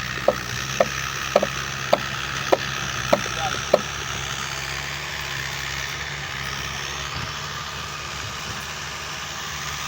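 A motor running steadily, with a quick run of seven short, sharp taps about every half second that stop about four seconds in.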